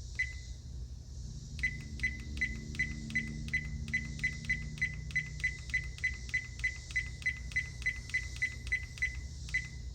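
RedTiger F7NP dashcam's button beeps: one short beep, then a quick even run of identical short high beeps, about three a second, as a menu key is pressed over and over to step through the date setting.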